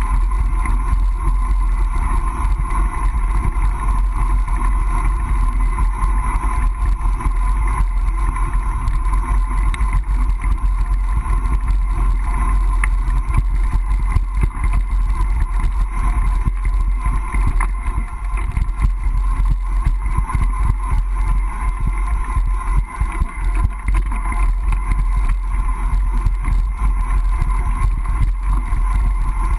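Riding a mountain bike: steady wind rumble on the action camera's microphone with tyre and road noise and small irregular rattles from bumps in the street surface.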